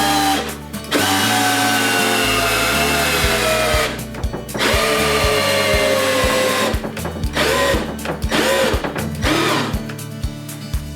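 ZUBR DL-16 A5 cordless drill-driver's motor running in several bursts with short stops between, its whine sinking in pitch during each run and rising and falling once near the end. Background music with a steady beat plays underneath.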